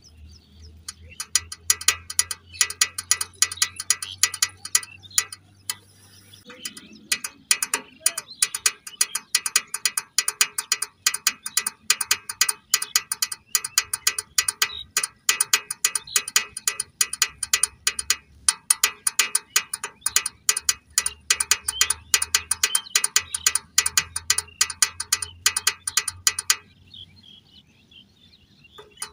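Small plastic toy car's pull-back motor clicking rapidly, a ratcheting run of clicks as its wheels are rolled along the floor to wind it. The clicking stops a couple of seconds before the end.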